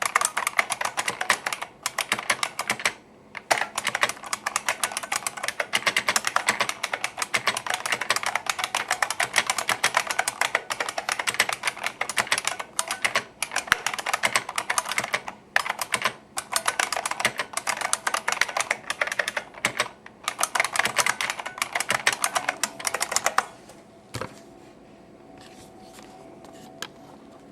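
1993 IBM Model M keyboard's buckling-spring keys clicking in fast, continuous typing, with a few short pauses. Near the end the typing stops, leaving a faint hum and one last click.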